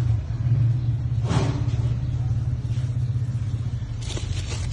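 Toyota 1KD four-cylinder turbodiesel idling with a steady, fast-pulsing low drone, a brief rushing sound about a second and a half in.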